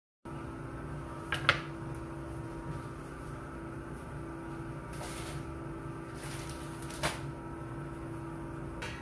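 Steady kitchen hum with a low held tone, under light handling sounds as a bamboo cutting board and a plastic bag of spinach are set on the counter: a double knock about one and a half seconds in, soft plastic rustles around the middle, and a sharp click later on.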